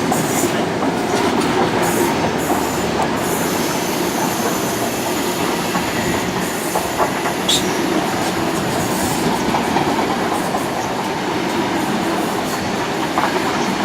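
Loco-hauled intercity train of Mark 3 coaches behind a Class 90 electric locomotive rolling past at close range, a steady rumble of wheels on rail with clicks over the rail joints.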